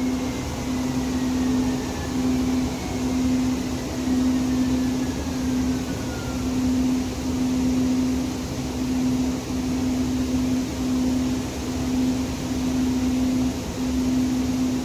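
Interior running noise of a Siemens S200 light rail car under way: a steady low hum over a rumbling rolling noise. A faint whine falls slowly in pitch over the first several seconds.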